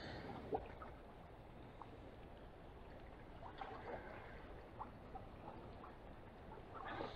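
Quiet outdoor background with a few soft, scattered clicks and light rustling.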